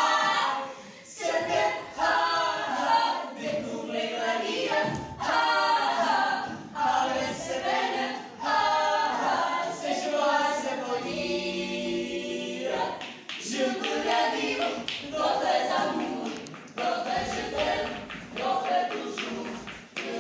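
Several voices singing together a cappella, with one long held note about eleven seconds in.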